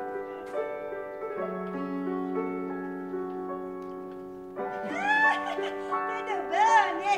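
Piano-like keyboard music of sustained, slowly changing notes. About four and a half seconds in it grows louder as a higher sound joins over it, sweeping up and down in pitch in short arches.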